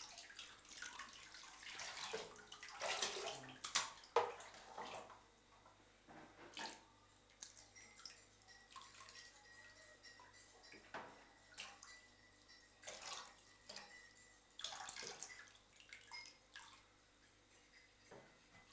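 Bathwater splashing and trickling in irregular bursts as a plastic cup scoops water and pours it over a cat standing in a shallow tub. The loudest splashes come about three to four seconds in.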